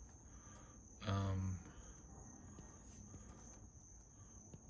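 A short vocal sound from a person, a brief hum, about a second in, over a steady high-pitched tone and a few faint clicks.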